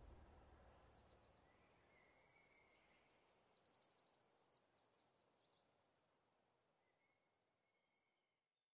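Near silence: a faint background ambience that fades out over the first couple of seconds, with very faint high chirps running on beneath it, then dead silence just before the end.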